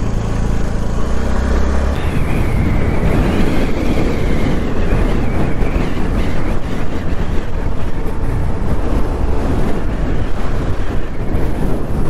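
A road vehicle driving along: a steady engine hum, covered from about two seconds in by a loud, continuous rushing noise of wind and road.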